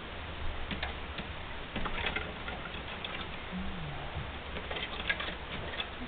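Light, irregular clicks and scratches of a budgerigar moving about its cage, its feet and beak on the bars and perches.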